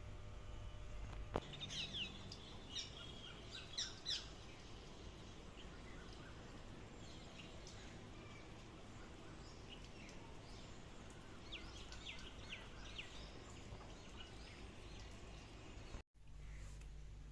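Birds chirping: scattered short, high calls over a steady background hiss, most frequent in the first few seconds. The sound cuts out briefly near the end.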